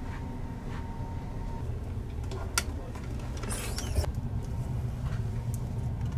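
Steady low rumble inside a train carriage, with two sharp clicks a little over a second apart near the middle and a brief rustle just before the second.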